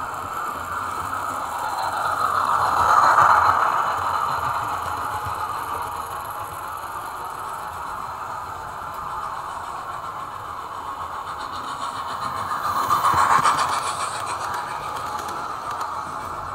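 OO-scale model trains running through the station: a steady whirring rumble of wheels and motors on the track. It swells as a train passes close, about three seconds in and again about thirteen seconds in.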